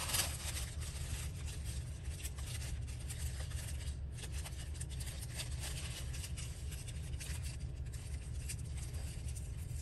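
Scissors cutting through paper, with light scratchy snips and paper handling, over a steady low hum.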